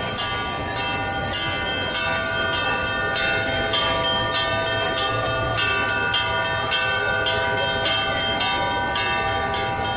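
Orthodox church bells pealing: several bells of different pitches struck over and over in a quick, even pattern, their tones ringing on together.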